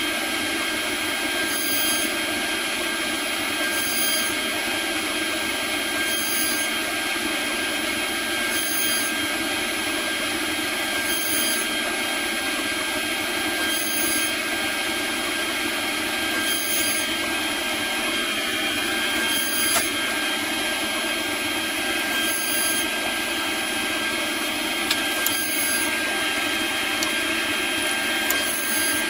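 CNC router spindle running with a steady high whine while its end mill cuts Delrin plastic, the chips hissing off the cutter. A faint change in the sound recurs about every two and a half seconds.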